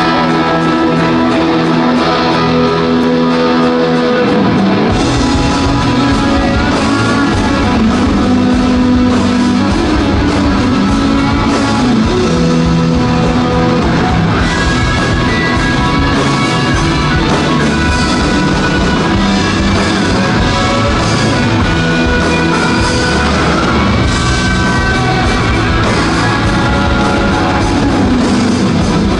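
A live rock band playing loudly: electric guitars open, and bass and drum kit come in about five seconds in, with the full band playing on from there.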